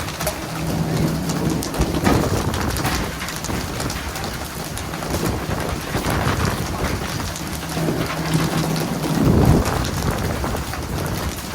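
Continuous rush of falling and splashing water, with a low steady hum coming in twice and a louder low rumble about nine seconds in.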